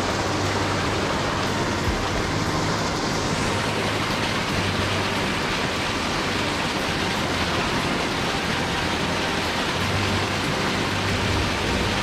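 Rushing water of a mountain stream, a steady, even noise.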